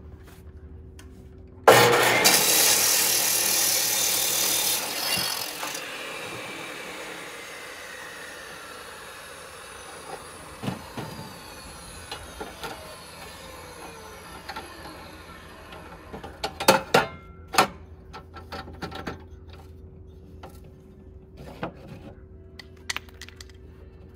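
Electric chop saw with a 14-inch diamond blade cutting through a concrete block. The loud cut starts suddenly about two seconds in and lasts about three seconds, then the blade spins down with a falling whine for about ten seconds. A few sharp knocks come about two-thirds of the way through.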